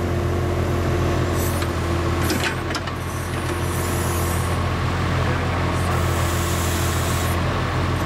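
Avant 528 compact loader's diesel engine running steadily while its Avant 260 backhoe attachment digs. A steady higher tone drops out about two and a half seconds in, where a few clanks sound.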